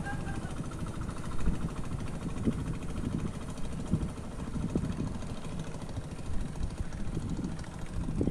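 Small motorboat engine running, heard as a low, uneven rumble.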